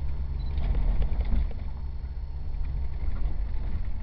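A Jeep's engine and drivetrain rumble steadily inside the cabin as it drives off-road over rocky ground. A few short knocks and rattles come about a second in.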